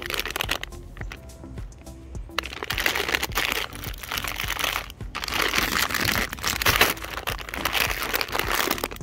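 A plastic pretzel snack bag crinkling as it is handled and turned over, in spells with a short lull about a second in, over quiet background music.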